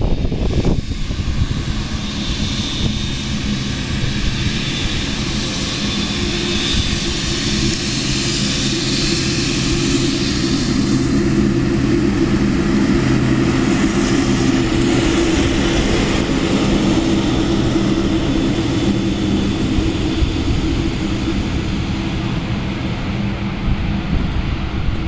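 Aircraft engines running loud and steady: a low drone with several even humming tones over a broad rush of engine noise.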